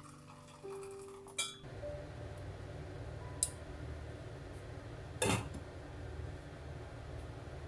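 A glass pot lid set down onto a stainless steel pot with a sharp clink about five seconds in, after a lighter click a couple of seconds earlier. A low steady rumble runs underneath.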